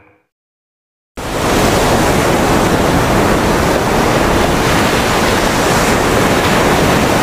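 The tail of a song fades out into a second of silence, then a loud, steady rushing noise, like static or surf, cuts in suddenly about a second in and holds unchanged: a noise intro at the start of the next track.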